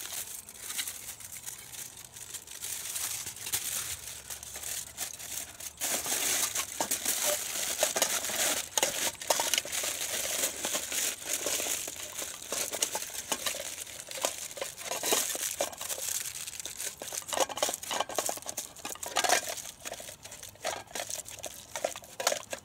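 Aluminium foil crinkling and crumpling as it is folded by hand and pressed into a small camping pot to form a liner, louder from about six seconds in.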